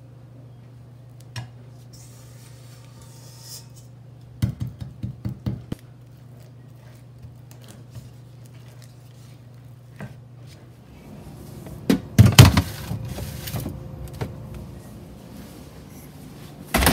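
A spatula and mixing bowl knocking against a glass baking dish while an Oreo-crumb and butter mixture is scraped out and spread. A quick run of sharp taps comes about four to six seconds in and louder clattering around twelve seconds, over a steady low hum.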